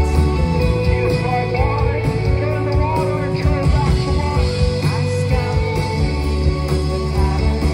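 A live rock band playing loud, with bass, electric guitars and singing; the low end is heavy and steady throughout.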